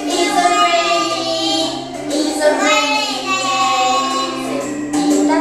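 A small group of young children singing together with adults, the voices holding long notes from one note to the next.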